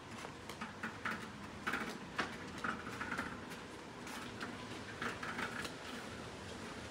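Light, irregular ticking and clicking of bicycles being ridden along a sandy path.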